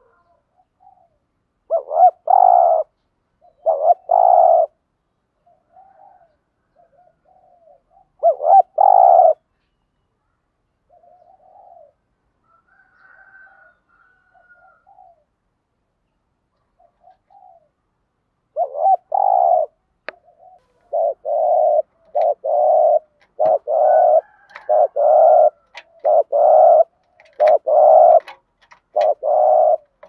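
Spotted dove cooing: a few separate loud, low coos in the first ten seconds, then a long run of coos at about one a second from about two-thirds of the way in. A few sharp clicks fall among the later coos.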